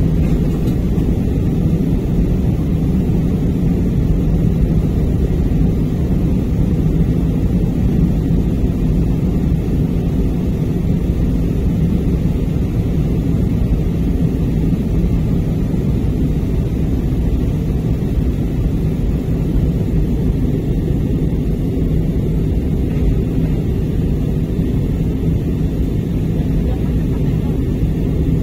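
Airliner cabin noise in flight: a steady low rumble that does not change.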